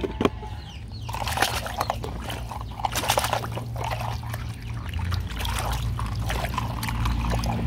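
Muddy water splashing and sloshing as a plastic toy car is swished and scrubbed by hand in a shallow puddle. The splashes start about a second in and go on in a quick, irregular stream.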